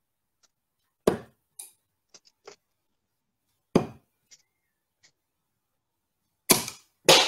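Darts striking a dartboard: three sharp thuds about two and a half seconds apart, with fainter clicks between them as darts are handled and pulled from a board.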